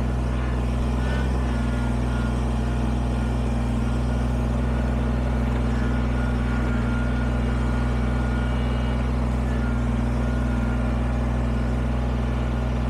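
Kubota BX23S sub-compact tractor's three-cylinder diesel engine running steadily as the tractor moves about with its front loader bucket.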